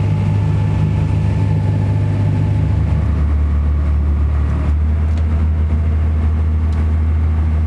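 Lobster boat's engine running steadily with a low hum; about three seconds in it drops to a lower, slower note as the boat throttles back.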